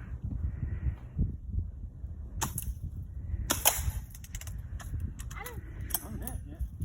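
BB gun firing: two sharp cracks, about two and a half and three and a half seconds in, followed by a few fainter clicks.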